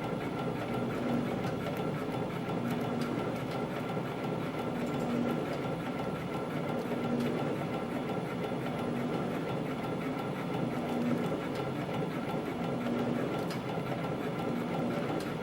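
Yeou Heuy CF-310 CNC spring coiling machine running at production speed, coiling 0.18 mm wire into small compression springs at about 170 a minute: a steady mechanical clatter with a constant high tone.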